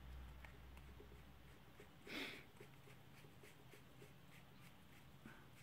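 Near silence with faint handling noise: light ticks and a brief scrape about two seconds in, as the plastic threaded collar of a cheap soldering iron handpiece is screwed back on by hand.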